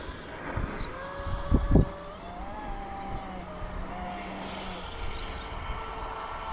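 Distant whine of a Pro Boat Impulse 32 RC boat's brushless motor running on 8S, its pitch rising and falling with the throttle. Two low thumps about a second and a half in.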